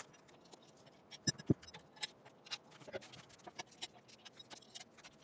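Scattered light clicks and taps of small hardware (bolts, washers, nuts) being handled and fitted as hinges are bolted onto aftermarket tube doors, with two duller knocks about a second and a half in.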